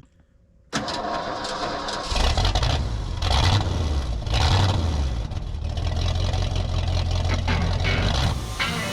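An engine running with a deep, steady rumble, cutting in abruptly about a second in, with clatter and scraping over it.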